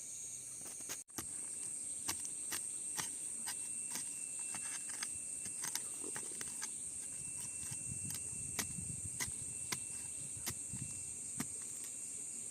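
Insects such as crickets or cicadas chirring in a steady high drone. Irregular sharp clicks, about one or two a second, sound over it, with some low rustling in the second half. The sound drops out briefly about a second in.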